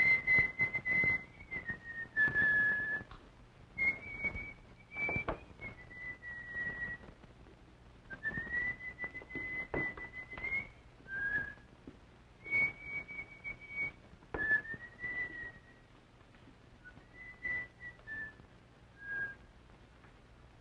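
A man whistling a slow tune of long held notes that step up and down a little, with sharp clicks and knocks of small objects being handled on a tabletop.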